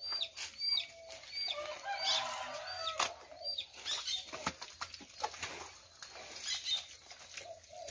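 Wet adobe mud slapped and pressed by hand into a wooden brick mold, giving scattered wet slaps and knocks. Over it a bird gives a high chirp over and over, about every two-thirds of a second, for the first few seconds.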